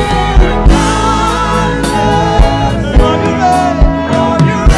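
Live gospel worship music: voices singing with a band, with drum hits on a steady beat about twice a second.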